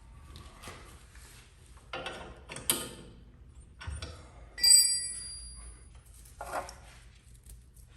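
Metal tools and parts being handled and set down: a series of knocks and scrapes, with a loud metal clink a bit past halfway that rings on briefly with a high tone.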